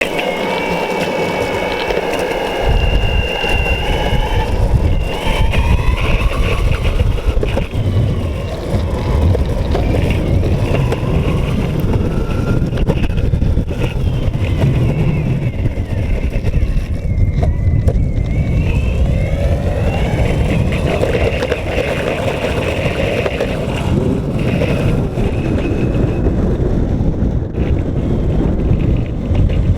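Boosted Board electric skateboard in motion: a whine from its drive, several pitches together, rising and falling with speed over a steady low rumble. The whine is the noise the owner presents as a problem with the board.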